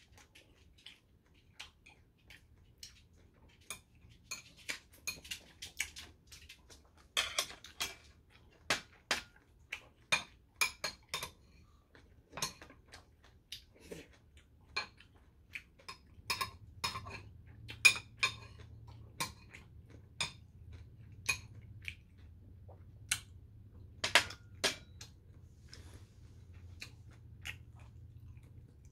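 Metal chopsticks and a metal spoon clicking and clinking against ceramic bowls and plates, in many light, irregular taps.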